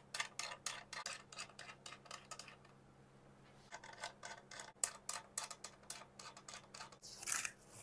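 Fingers pressing and smoothing blue painter's tape onto a lacquered guitar body, making a run of light ticks and clicks. A short scratchy rasp of tape comes near the end.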